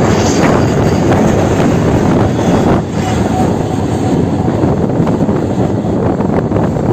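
Electric suburban local train running at speed: a loud, steady rush of wheels on rail and air, heard from an open window of the moving train.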